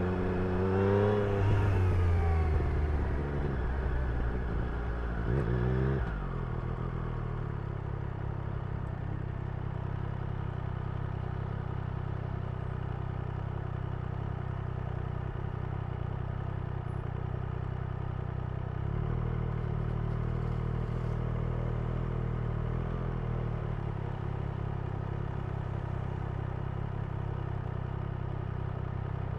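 Triumph Street Triple's inline three-cylinder engine revving and falling off for the first few seconds, then running steadily at low revs for the rest, picking up slightly about two-thirds of the way through.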